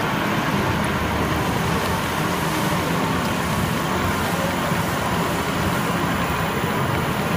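Steady, even background noise of a busy hall with machinery running, with no single sound standing out and no clear beat from any one engine.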